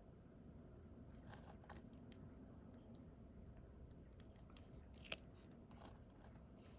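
Faint, scattered small clicks and taps of diamond painting: resin drills being picked up and pressed onto the adhesive canvas, with one sharper click about five seconds in.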